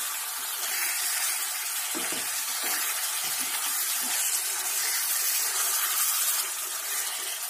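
Chicken pieces sizzling and bubbling in a pan in the juices the meat has let out, steady throughout, while a spoon stirs them with a few soft scrapes against the pan.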